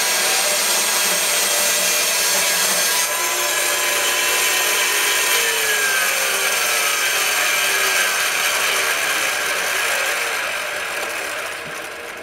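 Homemade bandsaw mill with a 4 HP electric motor driving a 1¼-inch band blade at 3000 feet per minute, cutting a board off a pine log: a steady, loud rasping saw noise. The sound fades over the last couple of seconds.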